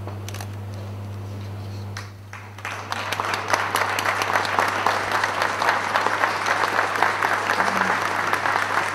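An audience applauding: many hands clapping together. The applause starts about two and a half seconds in and keeps up, over a steady low hum.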